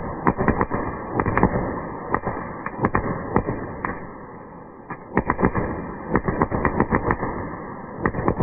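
Firework going off in a rapid, irregular string of sharp cracks and pops over a dull rumble. The cracks thin out a little past the middle, then come thick again.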